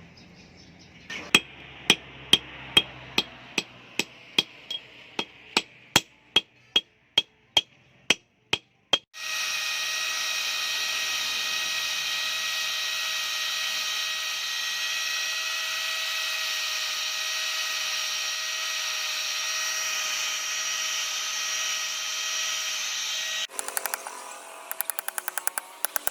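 Hammer blows on steel, about twenty in a row at a little over two a second, each with a short metallic ring. A power tool then starts and runs steadily with a high whine. Near the end it gives way to a rapid clatter.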